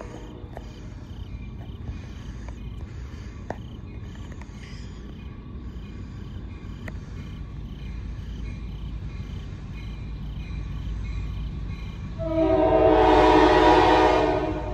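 Low rumble of an approaching EMD MP15AC diesel locomotive, then about twelve seconds in a loud blast of its multi-chime air horn lasting about two seconds.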